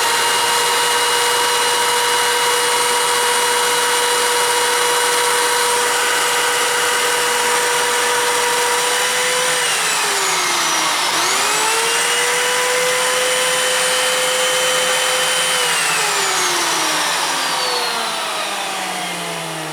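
High-speed electric motor running with a steady whine over a rushing hiss. About halfway through it is switched off and winds down, then starts again and spins up quickly. Near the end it is switched off again and slowly spins down.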